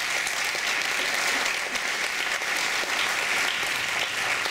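Audience applauding, a dense, steady clapping that holds without a break.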